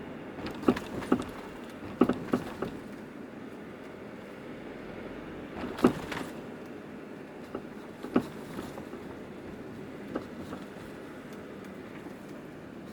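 Car suspension knocking: short sharp clunks, several in quick succession near the start, then a few single ones spaced several seconds apart, over a steady rumble of the car running. This is the abnormal noise the owner puts down to a faulty shock absorber.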